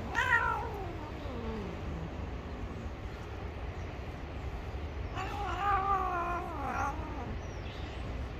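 Gray cat giving two long, drawn-out angry yowls at a hand reaching to touch it. The first falls steadily in pitch over about two seconds; the second, about five seconds in, wavers for about two seconds.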